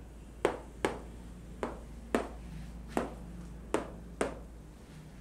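A marker tapped against a whiteboard about seven times: short, sharp clicks at an uneven pace.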